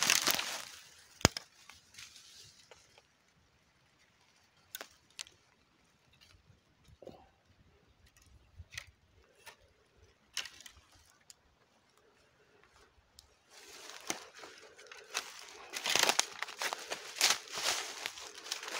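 Footsteps crunching and rustling through dry fallen leaves. The walking stops briefly at the start, leaving about ten seconds of quiet with only scattered small crackles and snaps, then steady steps through the leaves resume near the end.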